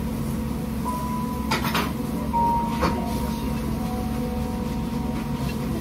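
Steady low hum of a ramen shop's dining room, with faint held tones in it. A short noisy sound comes about a second and a half in, and a sharp click about three seconds in.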